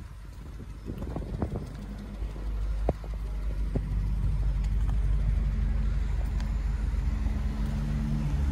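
BMW 650i coupe's 4.8-litre V8 idling, a steady low exhaust rumble heard close to the twin tailpipes; it grows louder about two to three seconds in. A couple of light clicks come with it.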